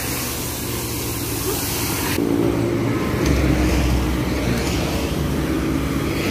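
Road traffic passing close by, motorcycles among it, over a steady engine hum. A deeper engine rumble comes in about three seconds in.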